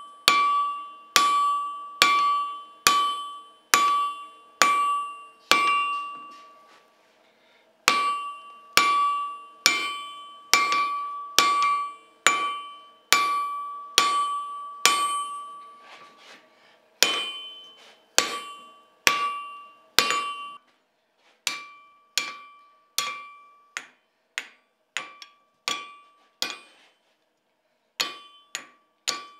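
Blacksmith's hand hammer striking red-hot steel bar on an anvil: a steady run of blows, about one a second or a little faster, each followed by a bright ringing of the anvil. Two short pauses break the hammering, and the later blows are lighter.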